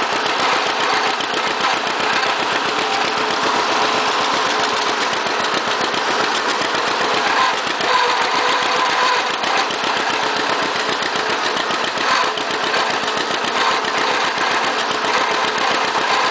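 John Deere 60 tractor's two-cylinder engine running steadily under way, its exhaust firing in an even, rapid beat.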